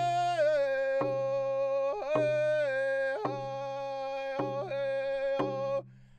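Closing music: a high voice sings long held notes, sliding down between them, over a steady beat struck about once a second. It breaks off briefly near the end, then starts again.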